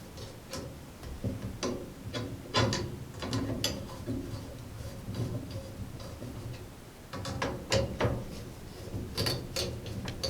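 Irregular clicks and light knocks of a CPU cooler's heatsink and fan being handled and fitted into place, plastic and metal parts tapping together.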